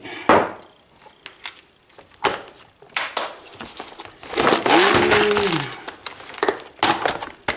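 Workbench handling noises: scattered clicks and knocks with a stretch of rustling and crinkling in the middle, as supplies and tools are picked up and set down.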